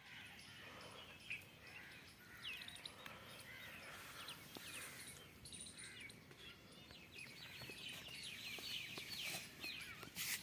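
Small birds chirping faintly: quick, high, repeated calls that grow busier in the second half, over faint outdoor background noise.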